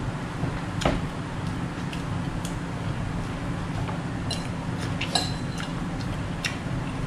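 Scattered light clicks and taps of eating at a table: a takeaway box and tableware being handled, the strongest click about a second in. A steady low hum runs underneath.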